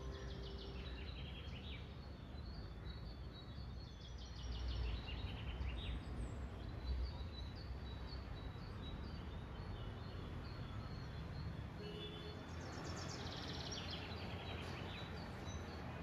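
Outdoor ambience: birds chirping in several bursts of rapid, high trills over a steady low rumble of urban background noise.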